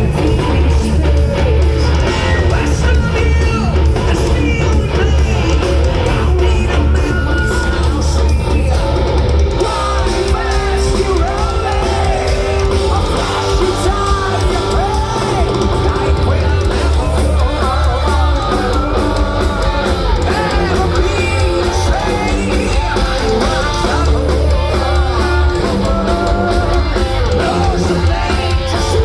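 Heavy metal band playing live and loud, with drums, bass and guitars and a voice singing a melody over them.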